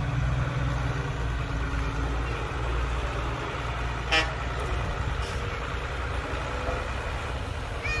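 Diesel engine of heavy earthmoving machinery running steadily with a low drone. About halfway through there is one short, sharp, high-pitched squeak or beep.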